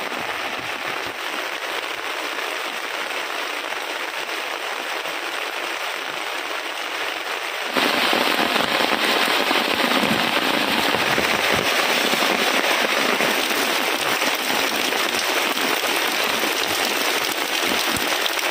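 Heavy rain falling, a dense steady hiss that jumps louder about eight seconds in.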